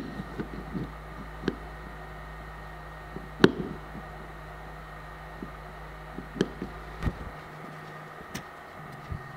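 Scattered knocks and clicks of small metal parts and hand tools being handled on a workbench, one sharper than the rest about three and a half seconds in, over a steady low hum that cuts off about seven seconds in.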